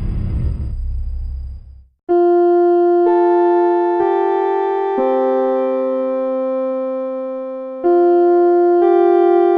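A low rumbling noise fades out over the first two seconds, then electric piano music starts: sustained chords that change about once a second.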